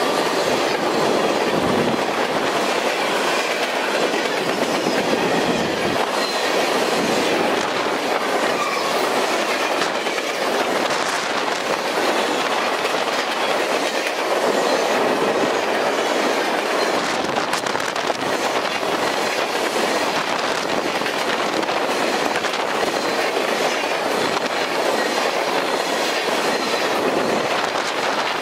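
Freight train's covered hoppers and tank cars rolling past at close range: a steady rattle and rumble of steel wheels on rail, with a clickety-clack of wheels over rail joints.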